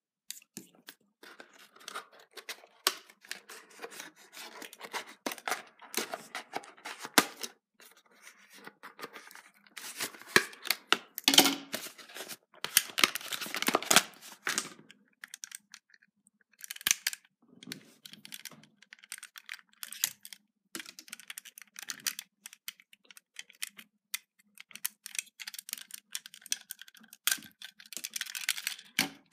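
Cardboard packaging and a small die-cast toy car being handled by hand: rustling, tearing and scraping with many small clicks, loudest around the middle.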